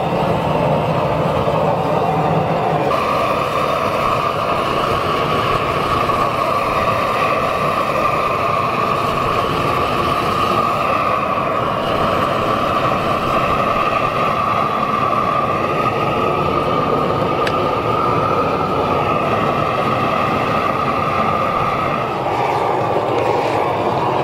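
Propane torch burning steadily, fed by a hose from a propane tank; its tone steps up about three seconds in and drops back near the end.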